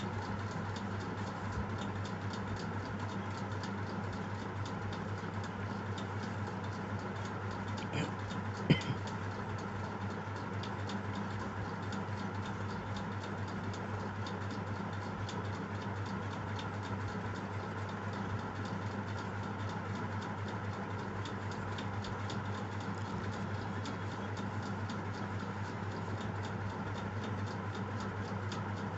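Steady low hum with fast, even ticking running through it, and one sharp knock about nine seconds in.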